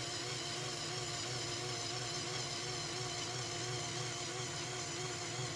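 Small Lego M electric motor running steadily, a whine whose pitch wavers slightly, as it drives the Technic gear train that turns the three propeller shafts.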